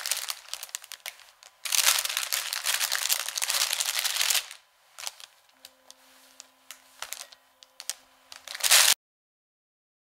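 Clear plastic bread bag crinkling as bread rolls are taken out of it, loudest for a couple of seconds, then lighter rustles and small clicks, with one last short crinkle before the sound cuts off suddenly.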